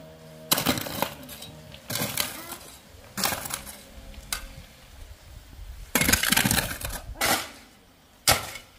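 A series of irregular sharp clinks and knocks, about six of them, hard objects striking with short ringing tails. One is a longer rattle about six seconds in.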